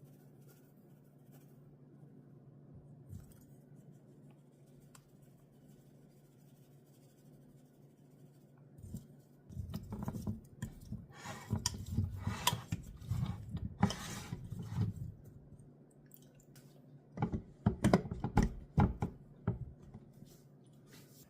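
Kitchenware being handled: two runs of irregular scraping, clicking and snipping, the first about halfway through and the second near the end, over a faint steady hum.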